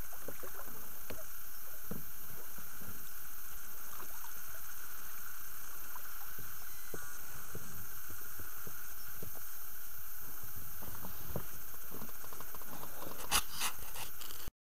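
Pike splashing and thrashing in a landing net as it is scooped out of the water and lifted into an inflatable boat, over a steady hiss. A few sharp knocks near the end.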